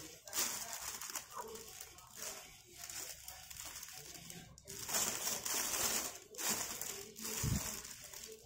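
Clear plastic bag of rice crinkling in repeated short bursts as it is handled and smoothed flat across the jaw of a heat sealer.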